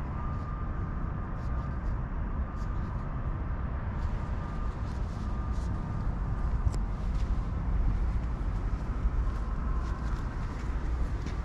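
Steady low outdoor rumble with a faint high hum, and light scattered footsteps on concrete.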